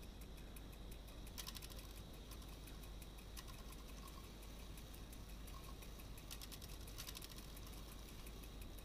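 Faint bursts of rapid mechanical clicking from a circa-1890 Badische clock movement's chime train running on the bench, its wheels and hammer work clicking through the quarter chime after the chime has been set forward.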